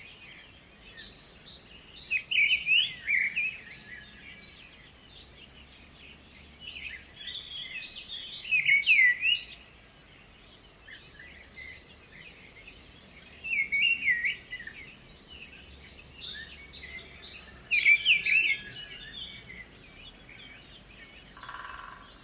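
Several songbirds singing: one loud song phrase comes back about every five seconds, with thinner high chirps from other birds in between.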